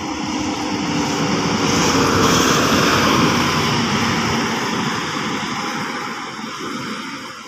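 Diesel coach bus engine pulling hard uphill as the bus passes close by, swelling to its loudest about two to three seconds in and then fading as it moves away.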